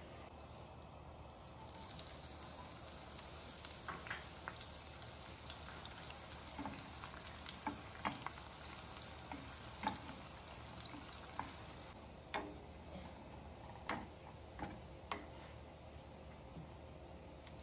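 Sliced onions sizzling in hot oil in a non-stick frying pan, with a steady hiss that starts about two seconds in. A wooden spatula clicks against the pan every second or so as the onions are stirred.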